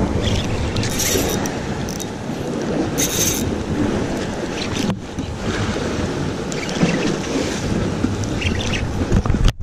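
Sea water sloshing and splashing against the concrete blocks of a breakwater, with a few brief louder hissing splashes, while wind rumbles on the microphone.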